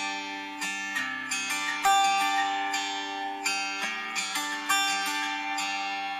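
Instrumental background music: a light tune of plucked notes over sustained lower tones.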